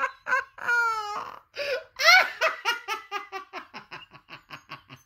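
A man laughing hard in a long fit: rapid ha-ha pulses, a high-pitched squeal about a second in, another outburst at about two seconds, then the laughs trail off quieter toward the end.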